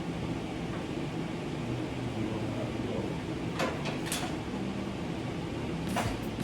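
Steady low mechanical hum, with a few sharp metallic clanks about three and a half, four and six seconds in.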